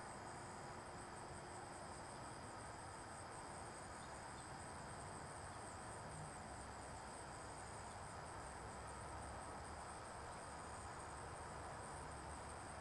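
Crickets trilling steadily, a faint high-pitched insect chorus over a low background hiss.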